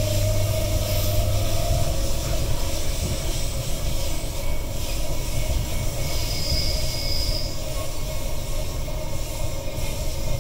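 Running noise inside a Queensland Rail EMU electric train carriage: a steady low rumble of wheels on track, with a hum that fades out about two seconds in. A brief high wheel squeal comes about six seconds in.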